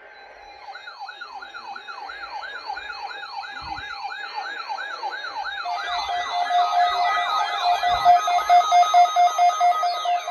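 Several weather radios sounding their alert alarms, set off by the tornado drill alert: fast, repeating siren-like whoops over steady beeping tones. A further pulsing beep joins about halfway through and the sound grows louder.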